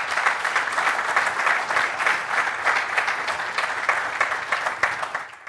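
Audience applauding, a dense run of many hands clapping that fades out near the end.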